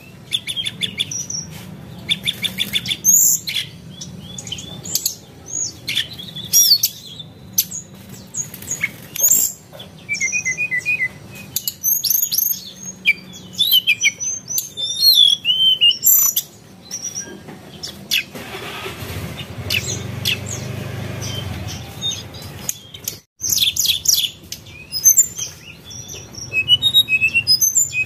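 Birds chirping and calling: many short, high notes that slide up and down in pitch, with a steady rushing noise for a few seconds past the middle.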